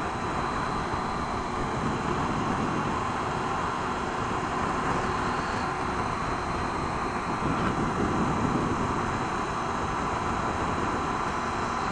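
Triumph Tiger 800 XRt's three-cylinder engine running at a steady cruise under a constant rush of wind and road noise, swelling briefly about eight seconds in.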